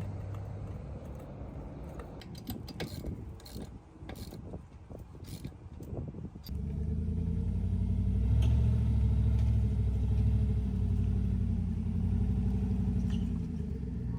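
Irregular mechanical clicks and knocks over a low rumble. About six and a half seconds in, a vehicle engine suddenly comes in loud and runs steadily at a low pitch.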